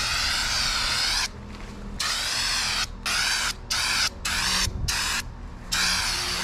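Aerosol can of spray-on bedliner hissing as it is sprayed in bursts: one long spray that stops about a second in, then several short quick sprays, and another long one near the end.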